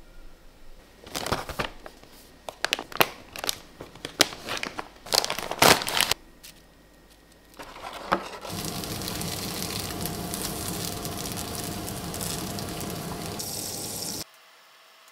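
Paper packaging crinkling and rustling in sharp, irregular bursts as dried noodle nests are handled. Then a steady sizzle of butter melting and foaming in a hot frying pan, which cuts off suddenly near the end.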